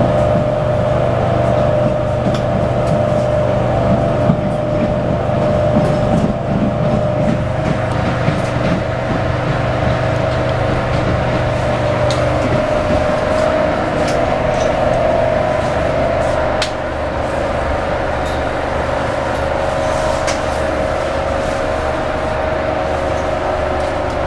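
Interior running noise of a CAF articulated electric train in motion: a steady whine with rumble underneath and scattered clicks and rattles. A lower hum drops away about halfway through.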